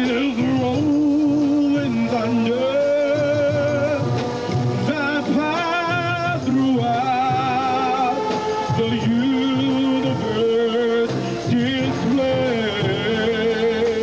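Marching band of brass and woodwinds playing a slow melody in long held notes with a wide vibrato.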